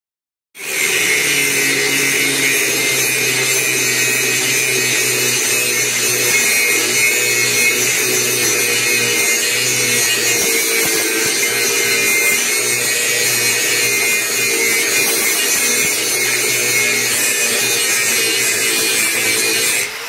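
Handheld angle grinder grinding the edges of steel plates clamped in a vise to even them up: a loud, steady grinding whine that starts abruptly about half a second in and holds evenly throughout.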